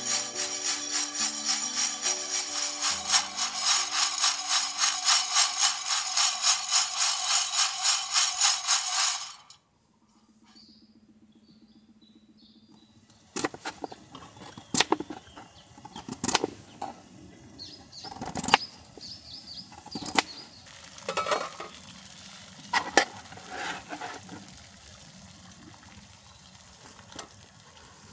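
Background music with a fast, even shaker rhythm that cuts off suddenly about nine seconds in. After a few seconds of near quiet with faint high chirps, scattered sharp clicks and knocks follow.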